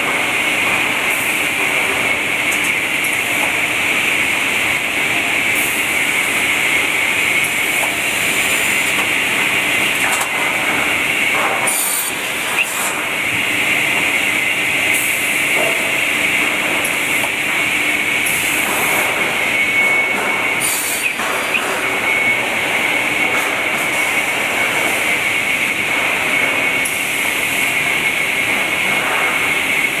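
Steady, loud machine noise of an automated timber branding and sawing line running, with a constant high whine and short hisses now and then.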